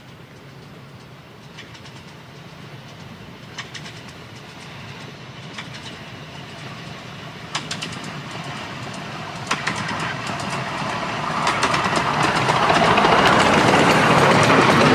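Miniature steam train approaching and passing close by, its running noise growing steadily louder, with scattered sharp clicks of wheels over the rail joints. It is loudest near the end as the carriages roll past.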